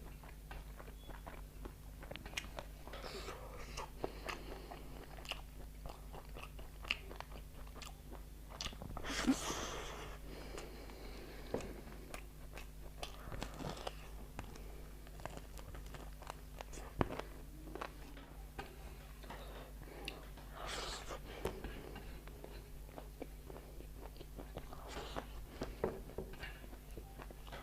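Close-miked eating: chewing and biting, with many small mouth clicks and a few louder crunchy or slurpy bites, over a faint steady low hum.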